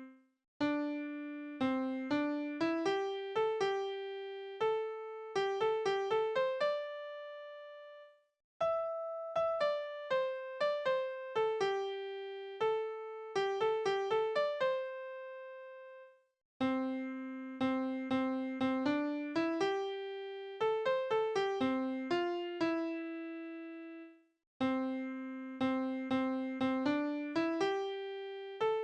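A school song played back on computer piano by Crescendo music-notation software. The notes are struck cleanly and come in phrases of about eight seconds, with a brief pause between phrases.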